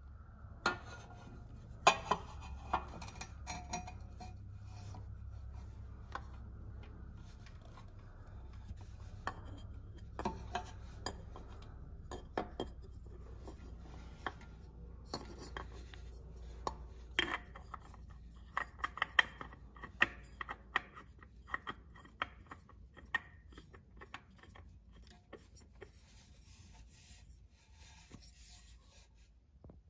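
Metal spin-on oil filter rubbing, scraping and knocking against the exhaust header and engine as it is worked into a tight space and threaded on by hand: irregular rubs with many sharp clicks.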